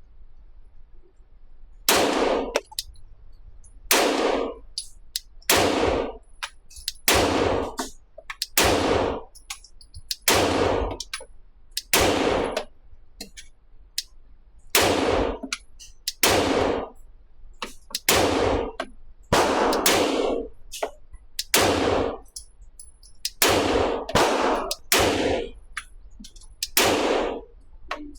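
9mm Glock 17L Gen 5 pistol fired in a steady slow string: about seventeen shots, one every one to two seconds, each with a ringing tail, starting about two seconds in.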